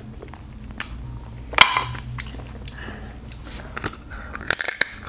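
Close-miked eating: crab meat pulled from the shell of a sauce-coated crab leg and chewed, with sharp wet clicks and mouth smacks scattered through, the loudest about a second and a half in and several more close together near the end.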